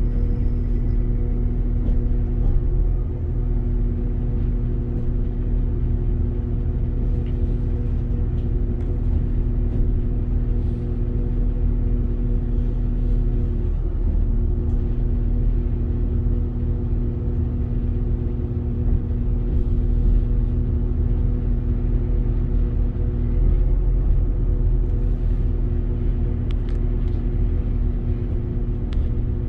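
A Northern Class 195 diesel multiple unit running, heard inside the carriage: a steady engine hum with a few held tones over a low rumble, plus faint light rattles. About halfway through, the hum's tones dip and break briefly before settling again.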